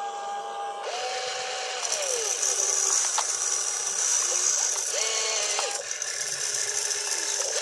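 Radio-controlled excavator's electric motors and gears whining as the boom, arm and bucket move. The whine comes in several separate runs of about a second each, its pitch rising as each movement starts and falling away as it stops.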